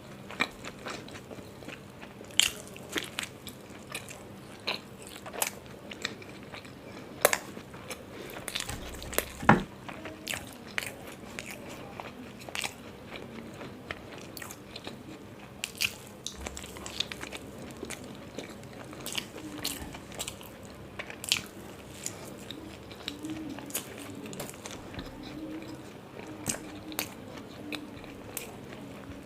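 Close-miked eating of paratha: irregular biting and chewing, with scattered crisp crunches and wet mouth clicks, one sharper bite about nine seconds in.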